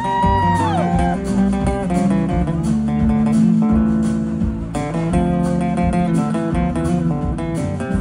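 Live band music in an instrumental break: strummed acoustic guitar over drums, with a held high lead note that slides down about a second in.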